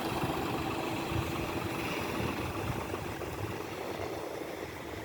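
An engine running steadily with a low rumble. A steady hum in it stops about halfway through.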